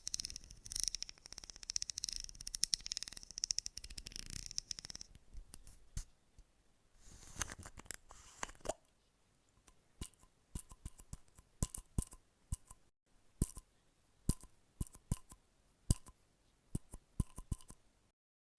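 Close-miked ASMR trigger sounds: a dense scratchy rustle for about the first five seconds, then a run of separate sharp taps and clicks, some with a short ringing tone.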